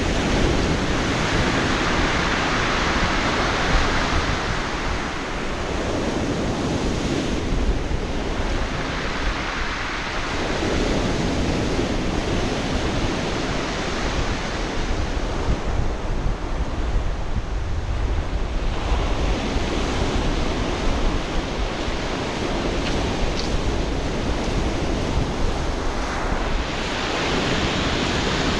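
Sea waves breaking and washing up a pebble beach, the rush of surf swelling and easing every few seconds.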